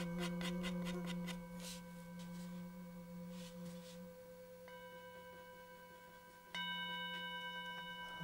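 Background music of held, ringing bell-like tones. A new note comes in about halfway through and another with a louder entry near the end, over a run of light, fast ticks in the first second or two.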